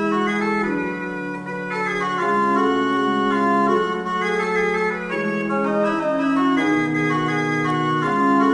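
Organ music: slow, held chords that change every second or so.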